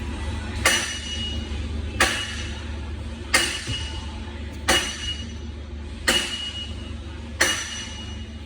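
Metal striking metal: six sharp, evenly spaced taps, each ringing briefly.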